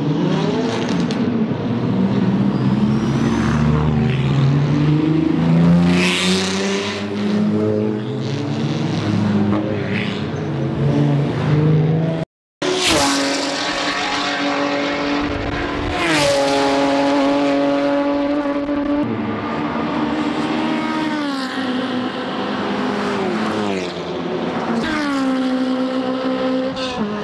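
Racing car engines revving hard and passing, their pitch climbing and dropping in steps at the gear changes. The sound drops out for an instant about twelve seconds in, then more cars pull away with a string of upshifts.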